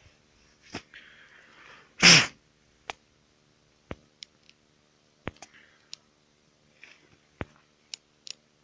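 One loud sneeze about two seconds in, after a short hissing breath. Scattered sharp clicks and taps from handling the chainsaw are heard before and after it.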